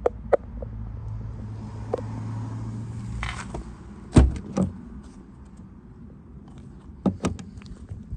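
Handling sounds from a car: a couple of clicks, then a steady low hum for about three seconds. About four seconds in there is a loud thump like a door or panel shutting, followed by further clicks.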